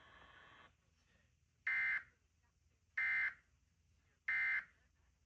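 Emergency Alert System end-of-message data tones from a TV broadcast: three identical short bursts of screechy digital data, about a second and a quarter apart, marking the end of the test alert. A faint steady tone cuts off just before them.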